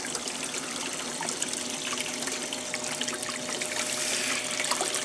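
Water from a quicksand gold concentrator's boiler chamber bubbling up gently and spilling over into the tub, a steady trickling and splashing. This gentle boil rather than a gush is the correct flow for catching gold. About four seconds in, screened dirt pours from a scoop into the water with a soft hiss.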